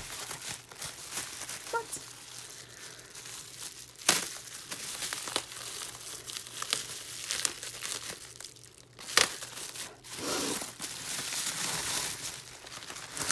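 Bubble wrap crinkling and rustling as a wrapped album is handled and cut open with a box cutter. Two sharp snaps stand out, about four seconds in and about nine seconds in, and the rustle gets denser near the end.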